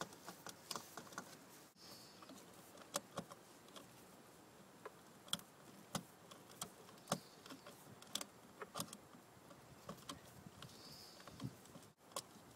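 Faint, irregular clicks and small taps of a GFCI receptacle being handled and pushed back into its outlet box.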